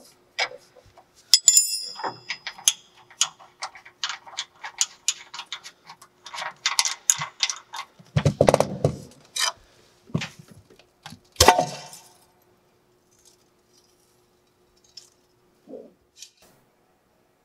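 Metal hand tools and loose fasteners clinking and clattering in a quick run of sharp clicks and taps, with heavier clunks about eight and eleven seconds in.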